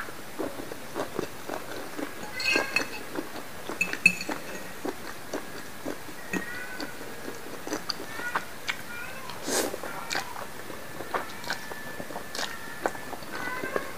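Close-miked wet chewing and lip smacks of a mouthful of squid ink pasta, with many small irregular clicks and a few louder sharp smacks. Near the end the noodles are sucked in at the lips.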